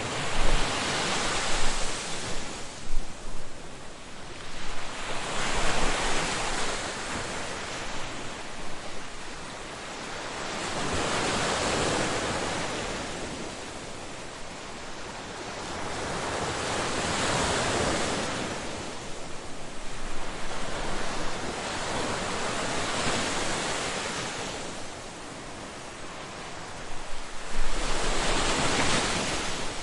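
Ocean surf breaking on a beach, each wave rising to a rushing crest and washing out, about one every five to six seconds.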